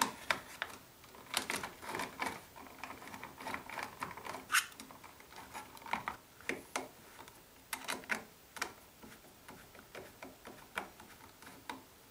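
Irregular plastic clicks, knocks and rattles as a programmable electronic thermostat is fitted onto a plastic electrical box, with wires pushed in behind it and a screwdriver driving its mounting screws.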